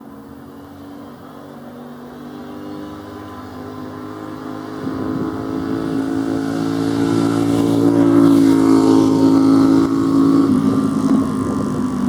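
Cessna 208B Grand Caravan single-engine turboprop approaching to land, its propeller drone growing steadily louder over the first eight seconds, then holding loud.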